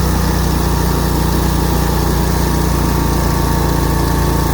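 Snapper 150Z zero-turn mower's 26 hp Briggs & Stratton engine idling steadily after being throttled down, running smoothly.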